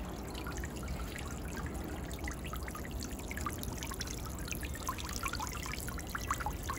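Water trickling and splashing steadily in a small decorative fountain, with many small droplet splashes that come thicker in the last couple of seconds.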